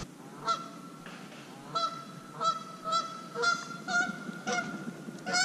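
A goose honking over and over, about eight or nine harsh squawking calls spaced roughly half a second apart, beginning about half a second in.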